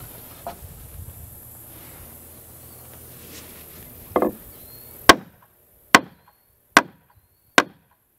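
Hammer striking a wooden timber-frame brace: a softer knock, then four sharp blows just under a second apart in the second half.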